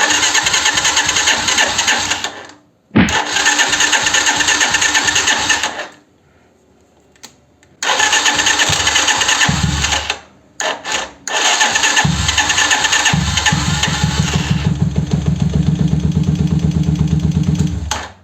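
Italika 125Z motorcycle's electric starter cranking the engine in several bursts: three of two to three seconds, two short blips, then a last one of about six seconds. The owner hears an occasional crack (tronido) on starting, which he suspects comes from the starter's Bendix drive.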